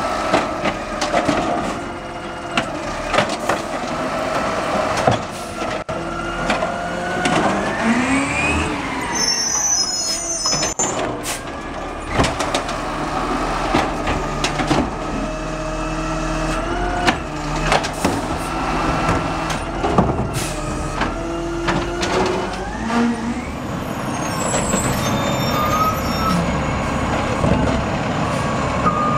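Automated side-loader garbage truck emptying curbside carts. The engine revs as the hydraulic arm lifts, tips and lowers a cart, with repeated clanks and bangs of cart and arm against the hopper, and a rattling clatter as the contents fall in.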